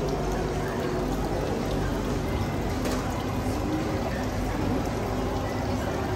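Water pouring and trickling steadily into an open pool, over a steady low hum.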